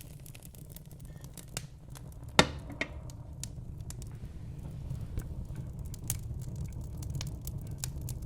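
Wood fire burning in a fireplace: a steady low rumble of flames with scattered crackles and small pops from the burning logs, one sharp loud pop about two and a half seconds in.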